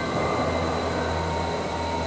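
A steady low droning hum with several thin, unchanging high tones over it, machine-like and unbroken.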